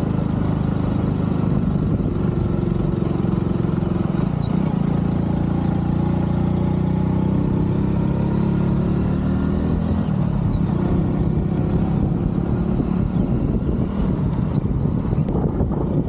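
Motorcycle engine running while the bike is ridden, its note climbing for several seconds and then dropping about ten seconds in.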